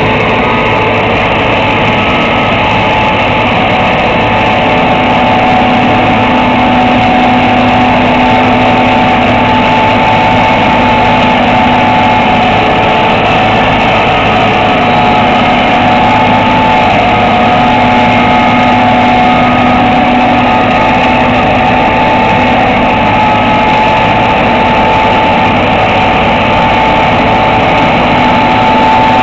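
John Deere 2256 combine harvester's diesel engine and threshing machinery running steadily under load while harvesting soybeans, a continuous drone with several steady whining tones.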